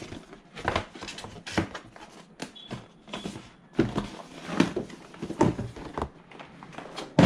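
Irregular knocks, clicks and rustles of handling as a plastic Deco M5 mesh Wi-Fi unit is put back into its cardboard packaging, with one sharp knock near the end.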